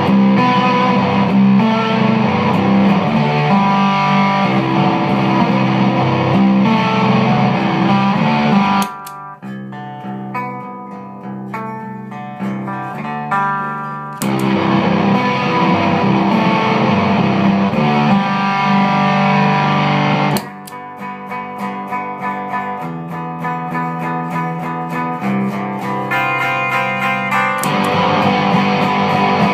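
Electric guitar played through a Ghost Effects Sounds of Today MK1 Tone Bender fuzz pedal with its bias, drive and level all turned fully up. Loud, sustained fuzzed chords alternate with quieter, thinner picked passages, which come about 9 seconds in and again about 20 seconds in.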